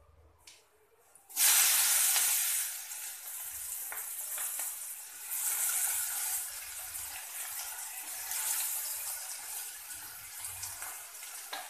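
Chopped onion dropped into hot oil in a kadai, bursting into a loud sizzle about a second in, then frying with a steady hiss that swells and eases.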